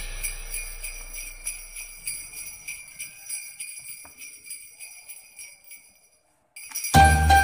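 Jingle bells shaking in a fast, even rhythm in a background music track, fading out over about six seconds. After a brief gap the track starts again near the end with loud jingle bells and a heavy bass beat.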